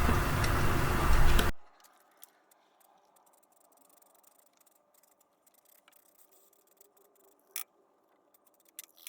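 Noise that stops abruptly about a second and a half in, then near silence broken by two or three faint clicks near the end.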